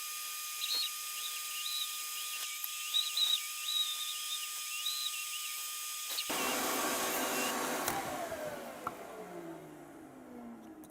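Power tool motor running with a steady high whine, then switched off about six seconds in and spinning down, its pitch falling over the last few seconds.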